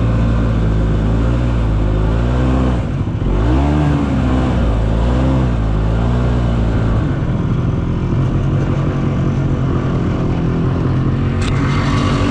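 Snowmobile engine running, its revs dipping and rising several times a few seconds in, then holding steady. A short sharp click near the end.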